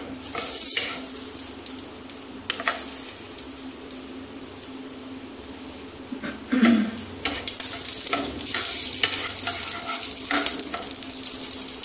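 Green cardamom pods and a chilli sizzling in hot mustard oil in a non-stick kadai, stirred with a wooden spatula: the tempering (phoron) stage. The sizzle is strongest at the start and again from about seven seconds in, and quieter in between while the spatula rests on the pan.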